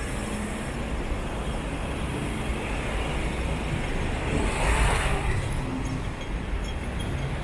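Road traffic rumbling steadily, with one vehicle passing close by, its noise swelling and fading about four to five seconds in.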